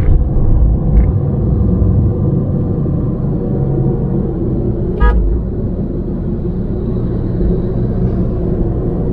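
Steady low engine and road rumble heard from inside a moving car, with one short vehicle horn toot about five seconds in.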